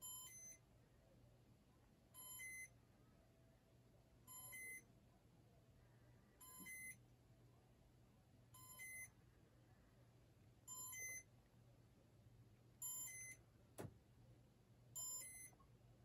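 Casablanca Stealth ceiling fan's Comfort Touch control beeping in test mode: a short, high electronic beep repeated about every two seconds, eight times, over a faint low hum from the running fan, with a single click near the end.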